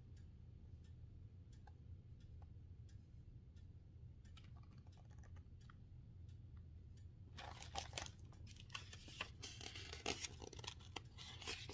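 Near silence with a faint low hum, then from about seven seconds in a run of crackling and rustling from a hardcover picture book and its paper pages being handled close to the microphone.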